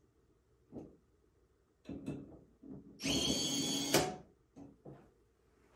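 Brushless inline cordless screwdriver driving a screw home in about a second with a steady whine. It cuts off sharply as its auto-shutoff clutch trips at the set torque, a successful fastening. A few light taps come before and after.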